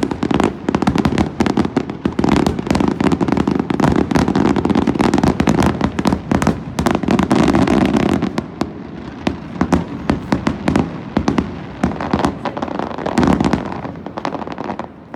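Fireworks display: a dense, rapid run of bangs and crackling bursts over a continuous rumble, thinning out a little in the second half and easing off near the end.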